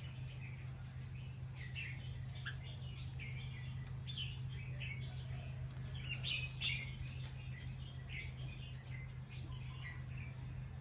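Bulbul chirping in many short, scattered calls, a little louder about six to seven seconds in, over a steady low hum.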